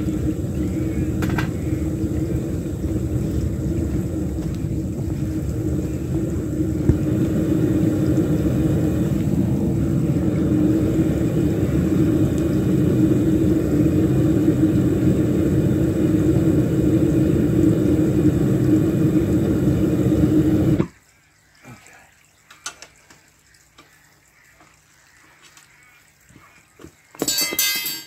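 Propane-fired crucible furnace burner running with a steady roar, then cutting off suddenly about three-quarters of the way in as the gas is shut off for the pour. A brief loud noise follows near the end.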